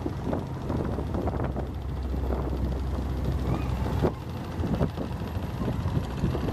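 Low, steady drone of a boat engine on the river, with wind buffeting the microphone in irregular gusts. The sound changes abruptly about four seconds in, and the drone is weaker after that.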